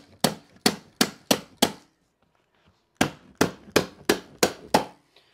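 Hammer striking, two quick runs of about six sharp blows each, about three a second, with a pause of over a second between: it is driving a carpet tucker to force the stair runner in under the stair nose.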